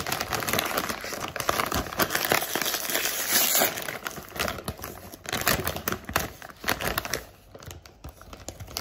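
Metallized plastic snack bag crinkling and crackling in the hands as it is torn open at the top. The loudest crackling comes about three seconds in, and the handling is lighter near the end.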